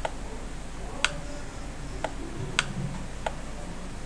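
Computer mouse button clicking five times in a few seconds, short sharp clicks at uneven intervals.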